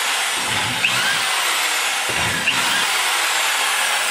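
Small hand-held rotary tool running steadily with a high whine and hiss while its cutter radiuses the sharp top edge of a bronze valve-guide liner in a cast-iron cylinder head. Its pitch briefly dips and swoops several times as it is pressed in and eased off.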